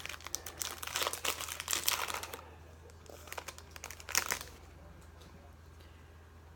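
Plastic trading-card pack wrapper crinkling as it is handled and torn open for about two seconds, with a shorter burst of crinkling about four seconds in.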